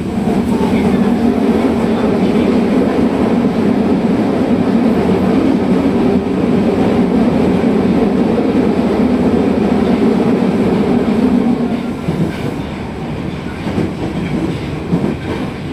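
Inside a Nagoya Municipal Subway Higashiyama Line car running through the tunnel: a loud, steady rumble of wheels on rail and running gear, easing off a little about twelve seconds in.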